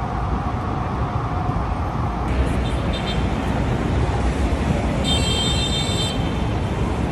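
Manhattan street traffic: a steady rumble of passing vehicles. A siren tone fades out in the first second or two, and a brief high-pitched squeal sounds about five seconds in for about a second.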